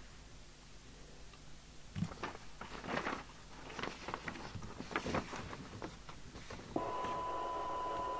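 Paper rustling and hands handling the open CB set, then about seven seconds in a steady 1 kHz test tone over radio hiss starts abruptly and holds.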